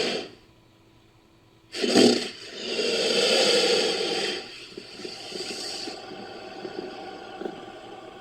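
Made-up creature calls pieced together from wild boar and crocodilian recordings: a sudden loud blast about two seconds in, then a long hissing roar, then a quieter crackling rasp that fades out.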